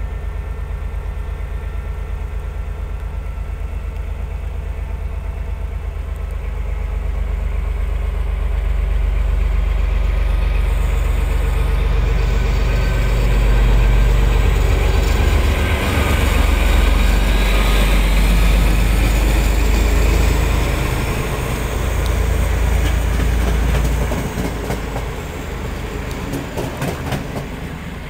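Passenger train with double-deck coaches passing through a station. It swells as it approaches and is loudest about halfway through, then fades near the end to a rapid clatter of wheels over the rail joints.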